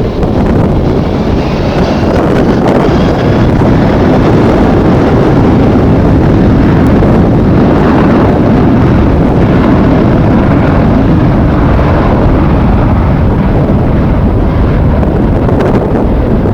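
Strong wind buffeting the microphone in a loud, steady rumble, with jet airliner engine noise under it and a faint falling whine in the first few seconds.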